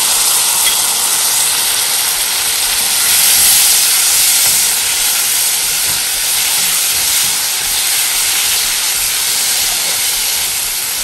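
Chopped tomatoes, onions and garlic frying in hot oil in a kadai: a steady hissing sizzle.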